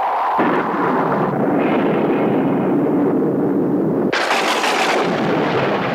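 Storm sound effects: a thunderclap breaks about half a second in and rolls on for several seconds, then about four seconds in a heavy downpour of rain sets in suddenly with a bright hiss.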